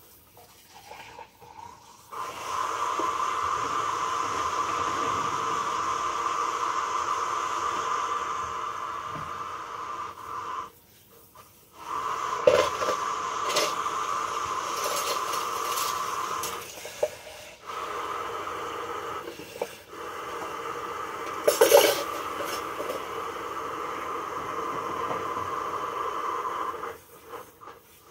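Steady kitchen hiss while a pancake cooks in a frying pan under a range hood; it cuts out briefly several times. A few sharp clinks of dishes come about halfway through, with a louder one later.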